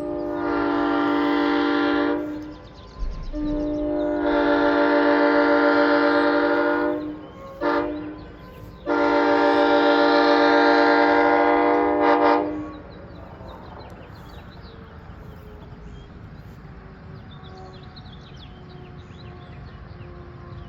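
Nathan M5 five-chime locomotive air horn sounding its chord on compressed air in four blasts: a long one, a longer one, a brief toot, then a final long blast that ends about 12 seconds in.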